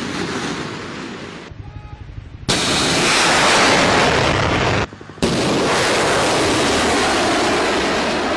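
Nour cruise missile's rocket booster firing at launch: a loud, steady rushing roar. It fades about a second and a half in, then cuts back in abruptly at full strength about two and a half and again about five seconds in.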